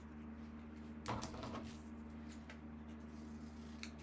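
Paper being handled: a short rustle about a second in and a few faint ticks later, over a steady low electrical hum.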